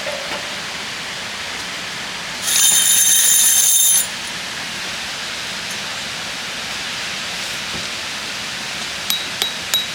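Steady hiss of rain falling. About two and a half seconds in, a brief loud high-pitched ringing sound cuts in for about a second and a half. Near the end there are a few light metallic clinks.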